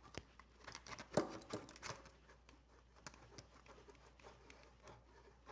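Faint, irregular clicks and light knocks of small objects being handled by hand, the two loudest a little over a second in and near two seconds in.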